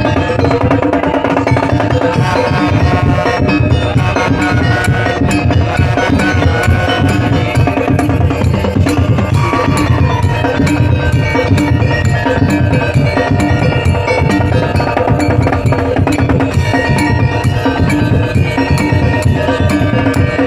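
Madurese daul music: a loud percussion ensemble of drums and wooden strokes beating a fast, steady rhythm under a sustained melody.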